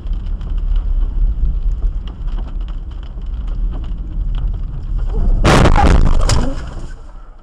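A car driving on a wet road in rain: a steady rumble of tyres and road noise with rain pattering on the windshield. About five and a half seconds in comes a loud crash as it collides with an oncoming car, with a second bang less than a second later.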